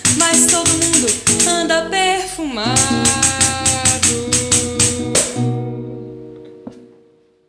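Classical guitar strumming a samba with hand percussion keeping a quick, even rhythm, ending on a final chord. The percussion stops about five seconds in and the last chord rings on and fades away.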